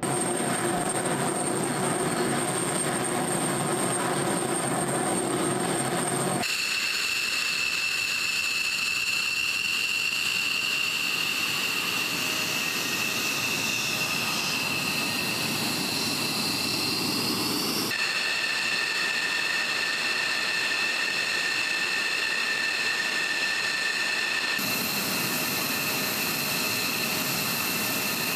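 F-16 fighter jet engine running on the ground: a loud, steady rush with a constant high-pitched whine. The whine's pitch jumps abruptly three times as the sound cuts between takes.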